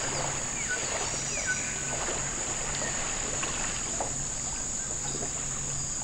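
Night rainforest ambience: insects droning steadily at a high pitch over light water lapping and splashing as an animal swims, with a low hum pulsing about once a second and a couple of faint chirps about a second in.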